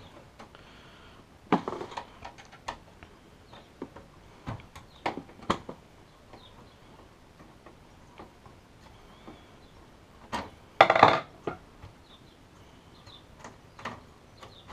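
Light clicks and knocks of hard parts being handled in a steel-and-plastic PC case (NZXT H440), spaced a second or so apart, with a louder brief clatter about eleven seconds in.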